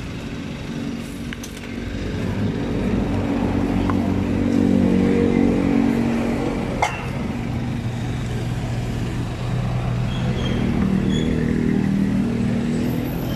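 Motor vehicle engine running close by on the street, getting louder about two seconds in, easing, then swelling again near the end. A single sharp click about seven seconds in.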